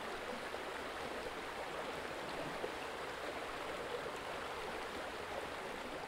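Steady, even rush of flowing water, easing down slightly toward the end.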